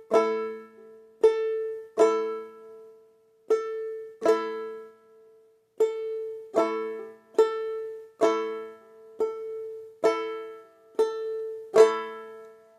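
Banjolele played clawhammer style, slowly and evenly. A single string is struck with the index fingernail, then the strings are brushed down into a ringing chord, and the pair repeats about every second and a half. This is the hit-and-brush that begins the bum-ditty rhythm.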